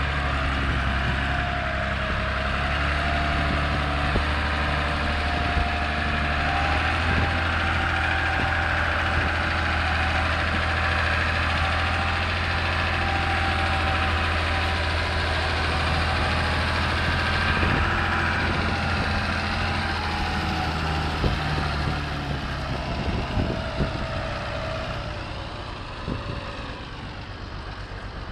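Renault 110.54 tractor's diesel engine running steadily under load as it hauls a trailer of about 3.5 tonnes of wet seaweed through sticky mud, with a whine above the engine note. A few knocks come near the end, and the sound grows quieter over the last few seconds.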